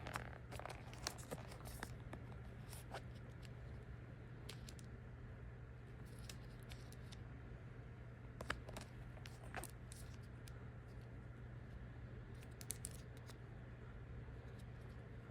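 Packaging being handled: some crinkling about the first second and a half, then scattered small clicks and taps over a faint steady hum.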